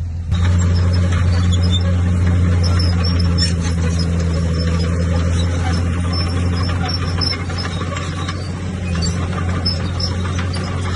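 Heavy earthmoving machine's diesel engine running steadily under load, a deep steady drone with a busy rattle over it. It jumps up in loudness a moment in.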